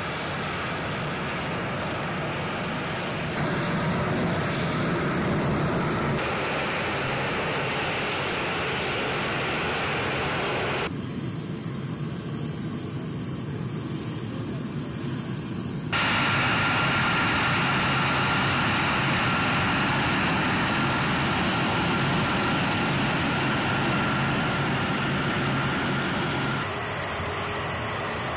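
KC-135 Stratotanker's CFM F108 turbofan engines running: dense steady engine noise with a high turbine whine. The sound changes abruptly several times.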